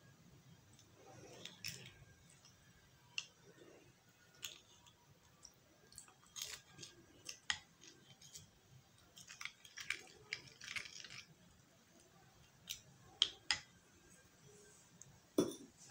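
Metal spoon scraping and clicking against a small bowl as herbal powders are stirred with tea water into a paste: faint, irregular taps and short scrapes.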